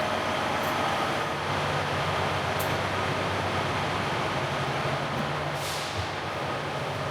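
Class 158 diesel multiple unit standing at the platform with its engines idling: a steady hum with a few short hisses.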